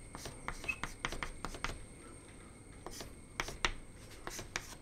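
Chalk on a blackboard, writing and drawing in short strokes: a run of sharp taps and scratches, with a pause near the middle before a second run of strokes.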